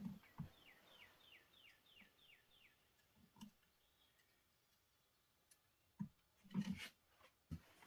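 Near-quiet room with a few faint knocks and clicks, a small cluster of them near the end, and a run of about eight quick, faint falling chirps, about three a second, in the first three seconds.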